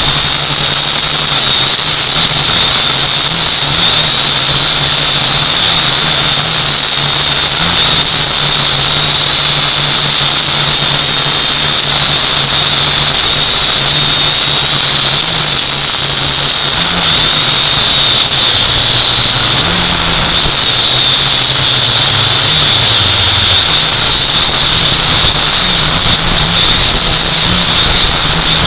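Quadcopter drone's motors and propellers whining loudly as it flies, the high whine stepping up and down in pitch several times with the changes in motor speed, over a low steady hum.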